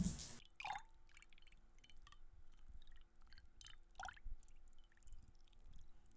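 Faint water drips: two clear plinks that drop in pitch, about a second in and about four seconds in, among scattered small ticks and drips. A hissing rush cuts off just after the start.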